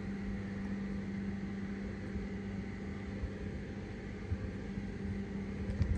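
A steady low hum with one held tone over an even background hiss, and a few faint knocks near the end.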